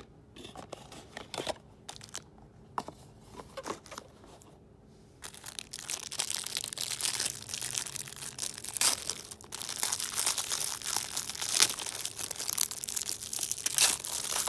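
Packaging being handled, crinkling and rustling: a few scattered clicks and rustles at first, then from about five seconds in a continuous dense crinkling.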